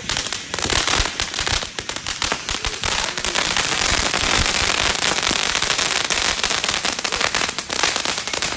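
Fireworks going off as a dense, continuous stream of rapid crackling pops, thickest through the middle of the stretch.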